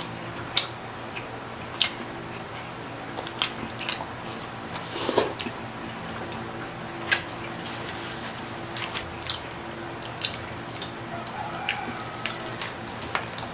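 Close-miked chewing and biting of crispy fried food, with short sharp crunches and clicks scattered irregularly over a low steady hum.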